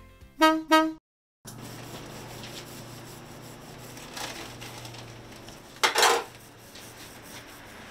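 Painting tools rubbing and scraping on boards at a workbench, with a louder scrape about six seconds in, over a low steady hum.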